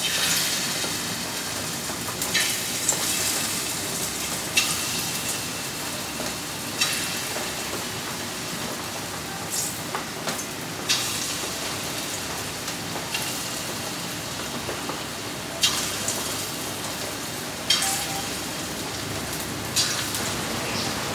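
Hot oil sizzling steadily as small dollops of ground split-pea (matar dal) paste are dropped into it one by one to fry. The sizzle flares up sharply every two seconds or so as each piece goes in.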